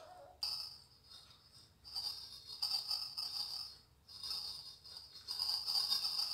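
Silicone spatula scraping and stirring butter, icing sugar and cocoa powder against a glazed earthenware dish, in four scratchy strokes of a second or two each.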